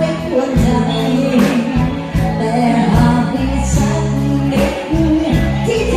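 Loud music with a singing voice, a steady bass line and a regular beat.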